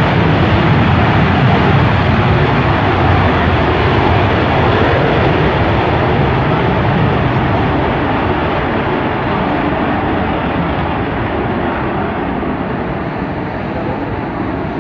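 Military aircraft passing overhead: a loud, steady engine rumble that slowly fades as it moves away.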